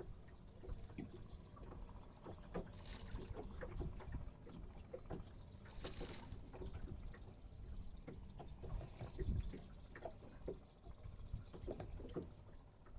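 Small boat on a river: a low rumble of water and wind against the hull, with scattered small knocks and clicks and a few short hisses.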